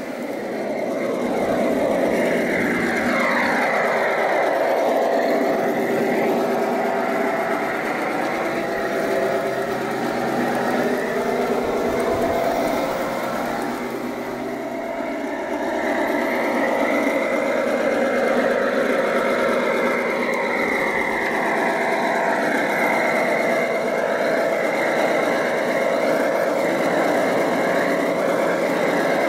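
Diesel engine sound from the ESU sound decoder in a gauge 1 Märklin model of an SNCB Nohab locomotive, played through the model's small onboard speaker while the train runs. It is a steady engine hum whose tone sweeps up and down as the train moves along the track, dipping slightly around the middle.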